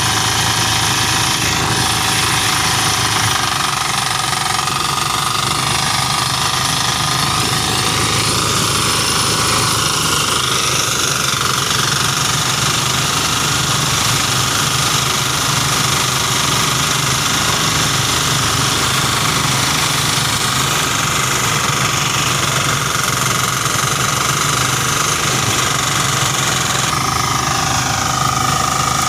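Portable rice thresher running steadily, driven by a small diesel engine with a rapid knocking beat, and a steady whine from the spinning threshing drum as bundles of rice stalks are fed in.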